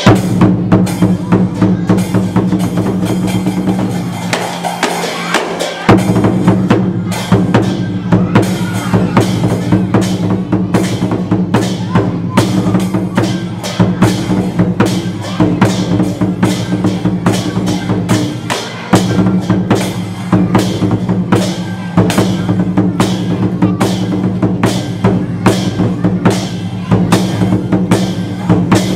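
Lion dance percussion: a drum beating a steady, driving rhythm with crashing cymbals over it. The low ringing drops out briefly twice.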